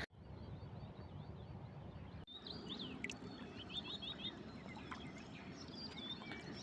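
Small birds chirping and calling over the steady low rush of a river riffle. The sound drops out for a moment just after the start and again about two seconds in, and the bird calls are clearer after the second break.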